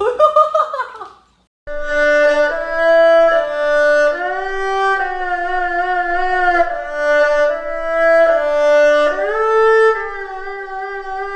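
Violin music playing long held notes, several at once, that change every second or two. It starts after a brief pause about a second and a half in, following a short loud sound whose pitch bends.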